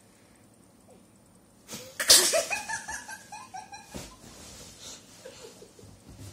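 A person bursting into laughter: a sudden loud outburst of breath about two seconds in, running straight into a quick string of high-pitched laughs that fade over about two seconds, with a few softer laughs later.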